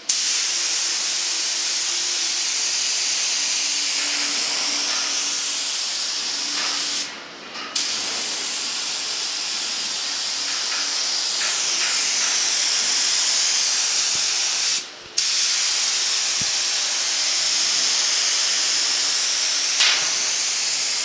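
Compressed air hissing through a gravity-feed spray gun as it sprays water. The steady hiss is broken by two short pauses, about seven and fifteen seconds in.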